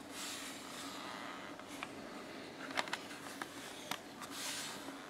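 Hands turning a clear plastic display case: fingers rubbing and sliding on the plastic, with a few light clicks and taps around the middle.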